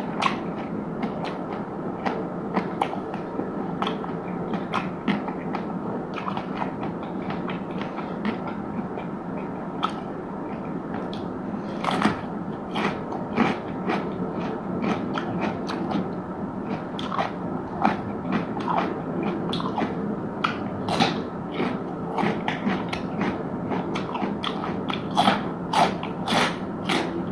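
Close-miked chewing and biting of crisp food, with many sharp crunches that come thicker in the second half, over a steady background noise.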